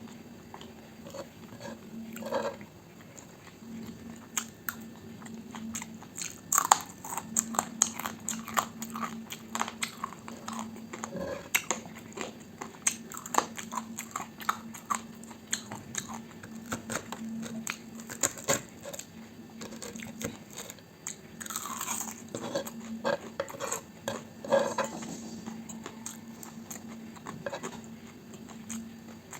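Close-miked eating: bites and chewing of fried breakfast food, a dense run of crisp crunchy clicks, over a faint steady low hum.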